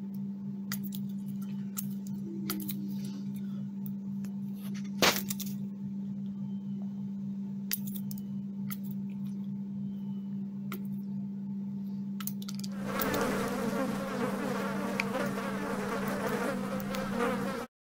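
A hen's beak tapping and clicking on a plastic bowl as it pecks up dried larvae, over a steady low hum. The biggest click comes about five seconds in, and a louder, rougher rustling noise comes in about two-thirds of the way through.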